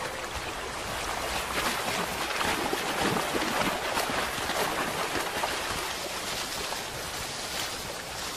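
Brown bear wading through a shallow river, water splashing and churning around its legs, heaviest in the middle and easing toward the end.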